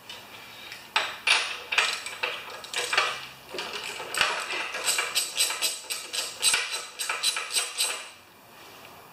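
Socket wrench clicking and clinking on the mower engine as the spark plug is loosened and unscrewed, going into a quick regular clicking of about four a second that stops abruptly about 8 seconds in.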